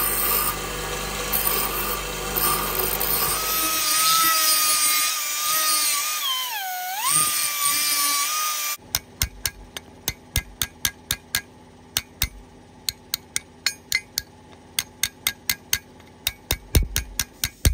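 Power grinding on a short piece of stainless-steel pipe, a small die grinder with a stone working inside it, with a steady whine that dips in pitch once under load. The grinding stops abruptly about nine seconds in, and a steel hammer then taps lightly and repeatedly on the stainless sleeve.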